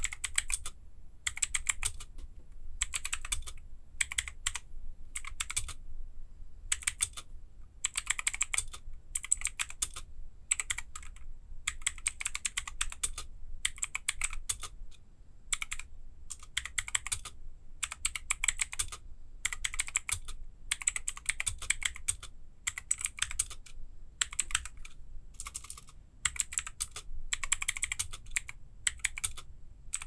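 Typing on a VicTsing PC320A tenkeyless mechanical keyboard with clicky Outemu Blue switches and PBT keycaps: quick runs of sharp key clicks with short pauses between them.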